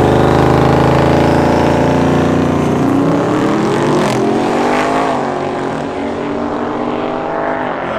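Twin-turbocharged 408-cubic-inch LS V8 Camaro launching off the drag strip line and accelerating hard down the track. The engine note climbs, drops at upshifts about four and five seconds in, and fades as the car pulls away.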